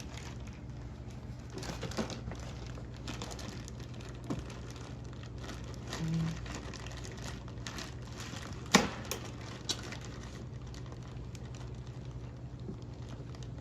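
Hands fitting an oiled foam air filter back into a dirt bike's airbox: faint rustling and small scattered clicks, with a sharp click about nine seconds in and two lighter ones soon after, over a steady low hum.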